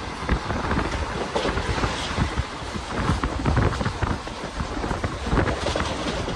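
Express passenger train running at speed, heard from an open coach door: a steady rushing noise over a low rumble, with irregular knocks and clatter from the wheels on the track.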